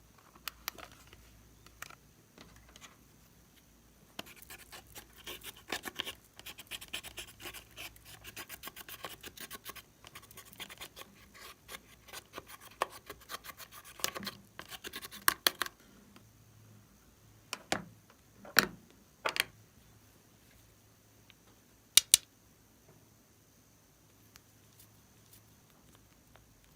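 Close-up scratching and crackling from slime-making materials being handled: a dense run of crinkly clicks for about twelve seconds, then a few separate sharp clicks and a loud double click near the end.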